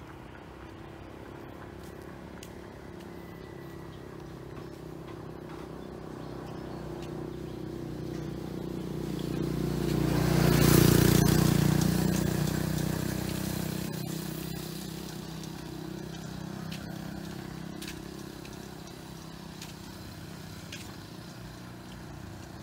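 A motor vehicle approaching and passing by, its engine swelling to loudest about eleven seconds in, then fading away.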